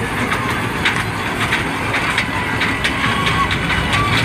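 Fairground dragon kiddie train running around its circular rail track, with short sharp clicks about twice a second over a steady background of fair crowd noise.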